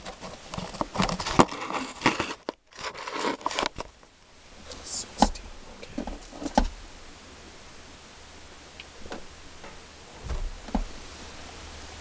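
Car-stereo wiring harness wires being handled close to the microphone: dense rustling and crinkling for about four seconds, then steady hiss with a few single clicks and taps.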